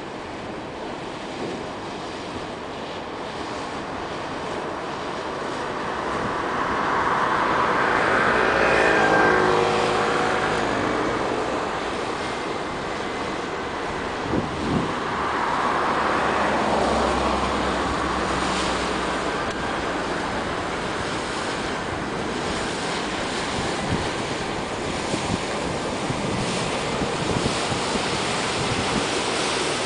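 Wind buffeting the microphone over the rush of water from a cargo barge's bow wave. A passing motor swells and fades twice, about a quarter of the way in and again around the middle.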